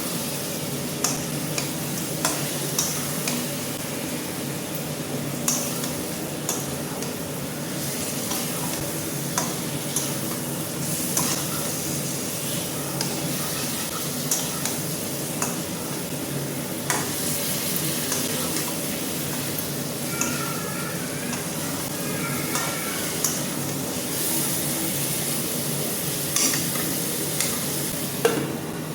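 Chicken frying in a kadhai with a steady sizzle, stirred with a utensil that scrapes and clinks against the metal pan at irregular moments.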